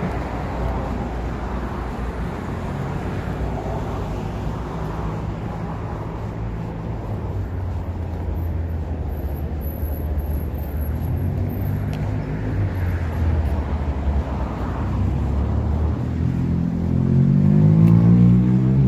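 Street traffic: motor vehicle engines running with a steady low rumble. Near the end one vehicle's engine grows louder and rises in pitch as it accelerates close by.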